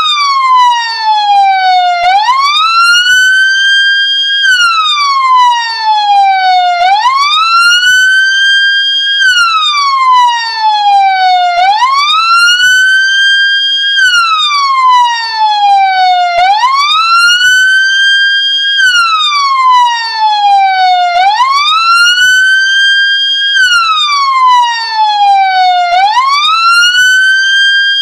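Ambulance siren wailing. The pitch climbs quickly, holds briefly at the top, then slides slowly back down, and the cycle repeats about every four and a half seconds, six times over.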